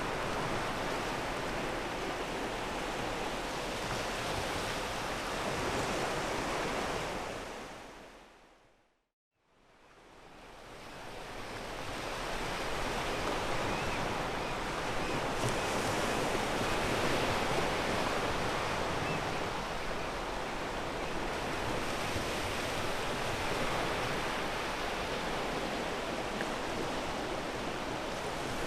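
Sea waves washing onto a pebble beach, a steady surf hiss with some wind on the microphone. About eight seconds in the sound fades to silence, then fades back up over a few seconds.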